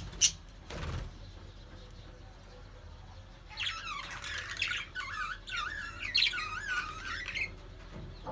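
Budgerigars chirping and warbling. A short sharp chirp comes at the start and a brief thump about a second in, then about four seconds of continuous, wavering budgie warble chatter from about three and a half seconds in.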